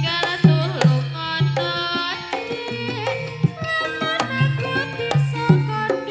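Javanese jaranan gamelan music: metal-keyed instruments play a melody over regular kendang hand-drum strokes.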